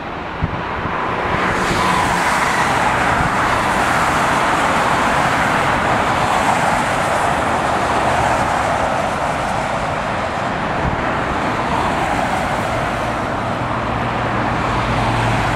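Jet airliner passing, its engine noise swelling about a second in and then holding as a steady, even rush.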